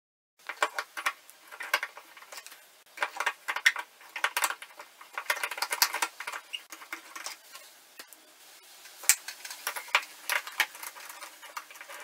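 A screwdriver scraping and clicking inside the corroded bore of an old Moen 1248 faucet cartridge, clearing out crusted debris, in irregular runs of small scratches and ticks.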